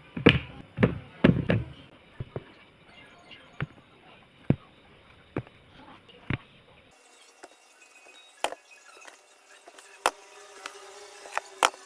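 Kitchen utensils knocking and tapping during food preparation: a few heavy thumps in the first second and a half, then single sharp taps every second or so.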